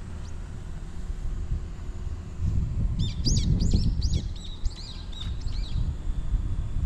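A small bird chirping in a quick series of high notes for about three seconds, starting about halfway through, over a steady low rumble that swells a little just before the chirps.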